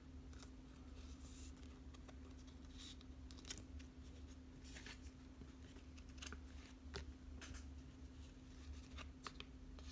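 Faint handling of Pokémon trading cards and plastic card sleeves as GX cards are sleeved: scattered light clicks and rustles over a steady low hum.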